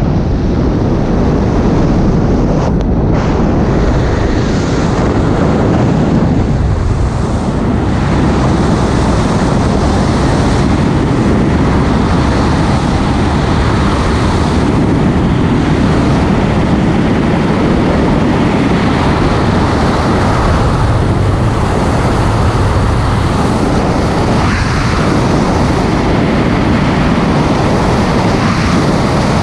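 Loud, steady rush of freefall wind buffeting the skydiving camera's microphone.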